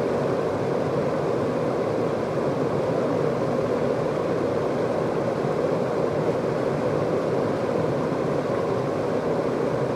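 Whitewater river rapids rushing steadily, the water churning loudly through a standing wave.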